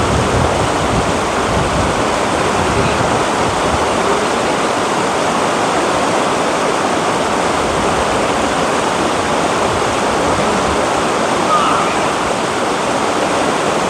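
Shallow rocky river running in rapids over and between boulders: a steady, loud rush of water.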